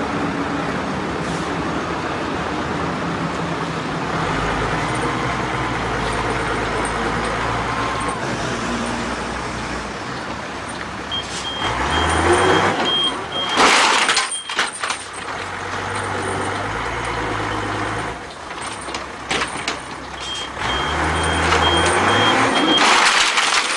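Heavy truck engine running steadily. Rapid short warning beeps sound twice, near the middle and near the end, and a loud hiss of air comes just after the first beeps.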